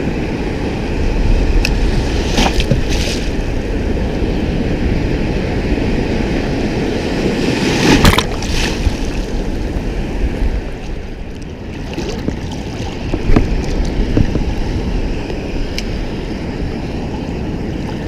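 Big sea waves surging and breaking, with wind rumbling on the microphone; the loudest surges come about two and a half, eight and thirteen seconds in.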